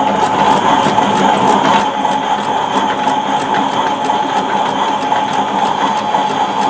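Wash-O-Matic toy washing machine running its spin cycle: a small motor and plastic gears whirring steadily with a fine, fast rattle.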